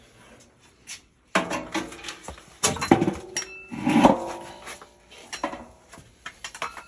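Sheet-metal parts of an indoor air-conditioner unit being handled: a run of metallic clanks and knocks, the loudest a little past the middle, some leaving a short metallic ring.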